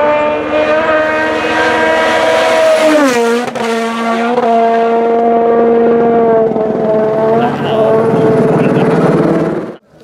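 2017 World Rally Car's 1.6-litre turbocharged four-cylinder engine running flat out at high revs. Its pitch drops sharply with a downshift about three seconds in, then climbs and holds high through further gear changes, and the sound cuts off suddenly near the end.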